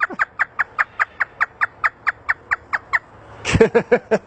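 African grey parrot mimicking a hysterical laugh: a rapid run of short, high 'ha' notes, about five a second, then a few fuller laughing notes near the end.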